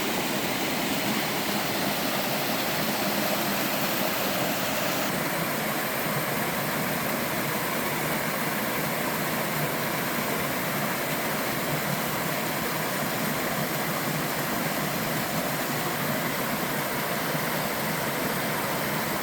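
Water of a mountain stream pouring steadily down a sloping-rock waterfall, a constant rushing hiss; the high hiss softens slightly about five seconds in.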